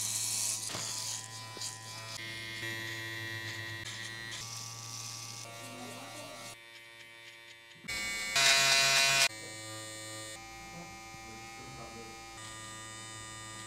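Electric hair clippers and a T-blade trimmer buzzing steadily as they cut short hair, in short spliced segments. A louder, brighter stretch of buzzing comes about eight seconds in.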